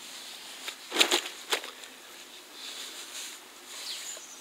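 Close rustling and crackling of hands handling fishing tackle, with two louder crackles about a second in.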